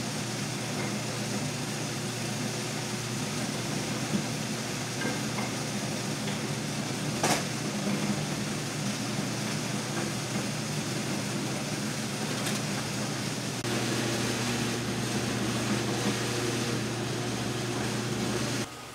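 Electric food slicer (cutter) running steadily with a low motor hum as it shreds tangerine peel into strips, with a single click about seven seconds in. It gets a little louder partway through and cuts off just before the end.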